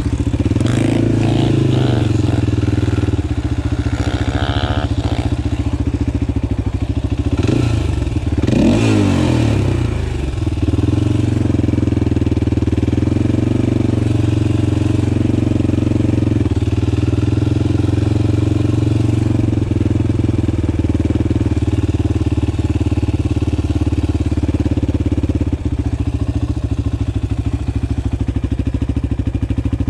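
Four-wheeler (ATV) engine idling steadily, with a brief rise and fall in pitch about eight to ten seconds in.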